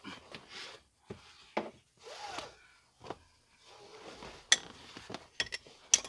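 Scattered clicks, knocks and rubbing from a seat belt buckle and its metal latch plate being handled and probed, with two sharper clicks in the second half.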